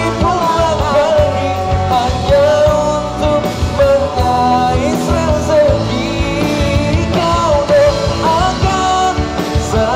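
Live amplified rock band playing: electric guitars, bass and a drum kit, with a melodic lead line over them.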